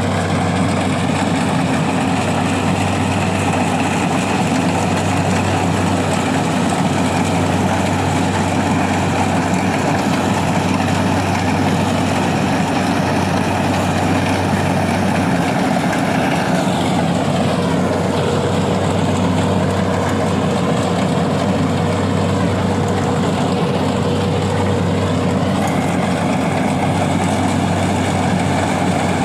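Engine of a rice-harvesting machine running steadily under load, a constant loud drone that shifts in tone for a while in the second half.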